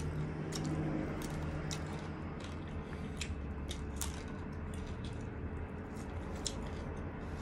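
Close-up eating sounds: chewing, wet lip smacks and scattered mouth clicks as grilled chicken is eaten by hand and the fingers are sucked clean, over a low steady hum.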